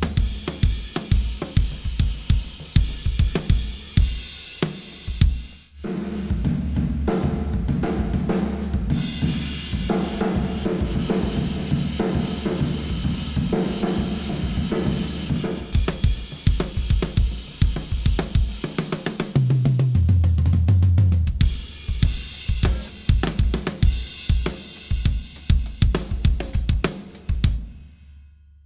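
Acoustic drum kit played with sticks: kick drum, snare, hi-hat and cymbals in a steady groove. Partway through, the sound changes from the full close-miked mix to room microphones only, washed with heavy reverb and compression. The playing fades out near the end.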